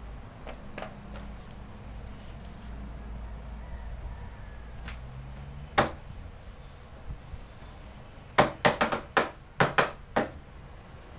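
Sharp knocks or taps on a hard surface: a single one a little before the middle, then a quick irregular run of about eight near the end, over a faint low hum.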